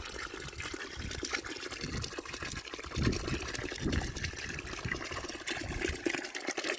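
Running water splashing and trickling as freshly bought fish are washed off by hand.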